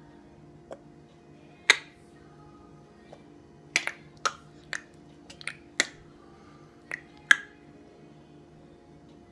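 Tongue clicks from a baby and his father: about a dozen sharp, separate clicks at irregular spacing, some in quick pairs, over a faint steady background.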